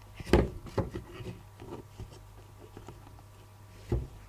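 Handling noises from working on a paper-and-wood model: a few light knocks and rubs, the loudest about a third of a second in and another near the end.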